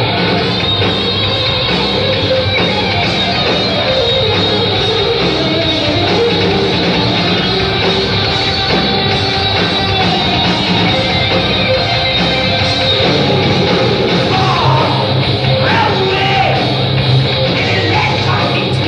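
Heavy metal band playing live: distorted electric guitar over drums and bass, with yelled vocals, loud and dense throughout.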